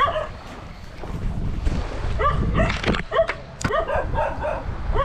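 Dogs barking, a rapid run of short barks, two or three a second, starting about two seconds in.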